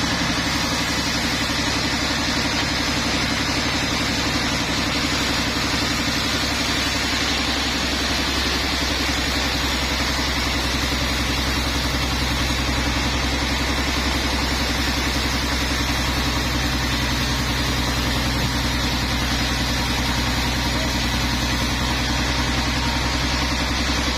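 Sawmill machinery running steadily with an unbroken engine-like hum. The level holds even throughout, with no sign of the saw taking up a cut.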